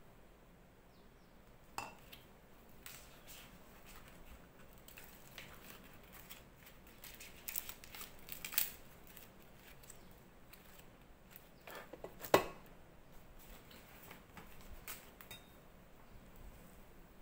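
Wooden rice spatula scraping and tapping against a metal rice-cooker pot as cooked rice is scooped out, with leaf wrappers being handled and folded. Scattered light clicks, the sharpest about twelve seconds in.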